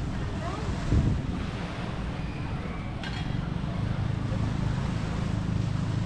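Wind buffeting the microphone over a steady low rumble, with a brief louder gust about a second in.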